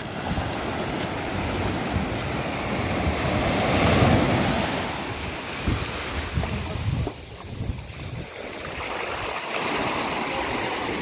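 Sea surf breaking and washing up a sandy beach, loudest about four seconds in, with wind rumbling on the microphone.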